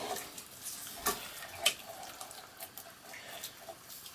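Stirring a thickening milk sauce in a pan on gentle heat: soft scraping of the utensil in the sauce, with a couple of sharp knocks against the pan about one and a half seconds in.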